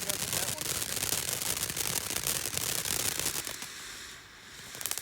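Ground firework fountain spraying and crackling, a dense rapid crackle that dies down about three and a half seconds in.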